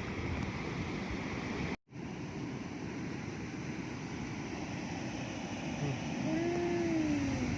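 Sea surf and wind on the microphone, a steady rushing noise, broken by a brief total dropout about two seconds in. Near the end a short tone slides downward in pitch.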